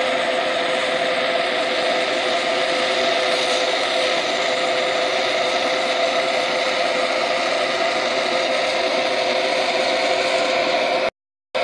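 Oxygen-fuel torch flame running steadily against a ceramic melting dish, heating a sprinkled borax coating to glaze the dish. The sound is an even rush with a faint hum in it, and it breaks off for a moment near the end.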